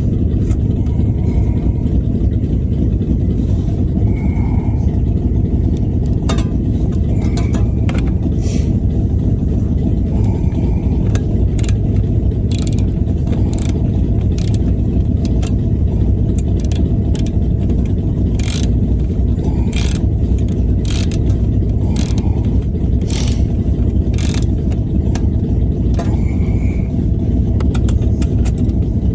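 Car engine idling steadily, the Acura RSX's K-series four-cylinder heard through its exhaust. From about six seconds in, a series of sharp clicks comes roughly once a second as a hand tool drives in a last fastener.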